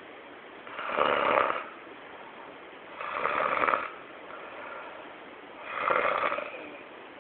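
Snoring: three loud, rasping snores about two and a half seconds apart, each lasting just under a second.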